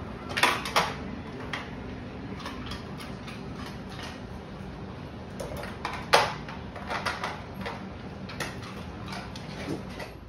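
A dog pushing at a refrigerator's door water and ice dispenser: irregular clicks and knocks, with one louder knock about six seconds in.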